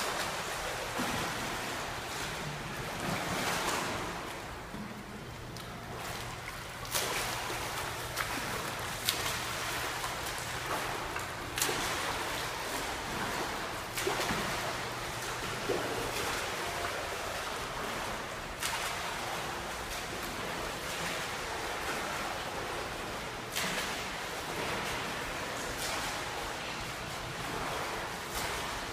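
A swimmer's front-crawl arm strokes and kicks splashing in an indoor pool: a steady wash of water noise with occasional sharper splashes.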